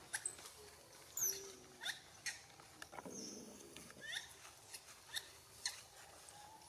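A string of short, high-pitched animal chirps or squeaks, each sliding down in pitch, coming irregularly about once a second. A brief rustle about three seconds in.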